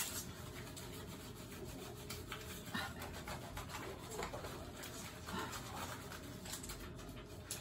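Hands rubbing and scrubbing shampoo lather through a wet, curly-coated dog's fur: a steady wet rubbing with many small clicks.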